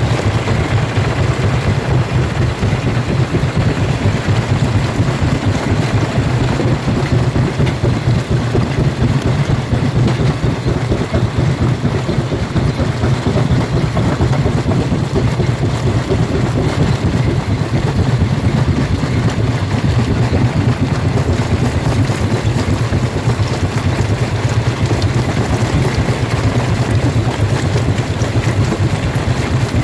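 Jaw rock crusher running and crushing stone: a steady low drone with dense, continuous rattling and crunching of rock through it.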